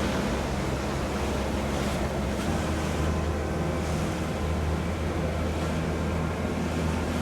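Motorboat under way: the engine's steady low drone under the rush of water along the hull, with wind buffeting the microphone.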